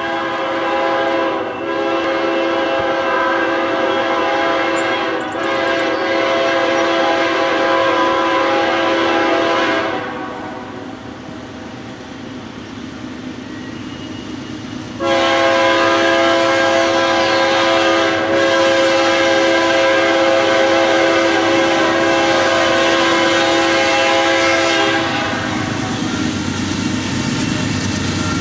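Air horn of the lead locomotive, GE Dash 9-44CW BNSF 726, blowing two long blasts of several tones sounding together. Each blast lasts about ten seconds, with about five seconds between them. The low rumble of the approaching diesel locomotives carries on under and after the blasts.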